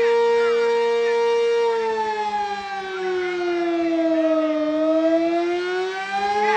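Sentry 20V2T civil defense siren sounding loudly. It holds a steady tone, then its pitch falls smoothly for about three seconds and climbs back up to the steady tone near the end.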